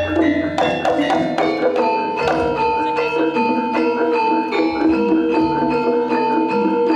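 Javanese gamelan music: metal mallet percussion striking a quick, even pattern of ringing notes, with a long held high note coming in about two seconds in.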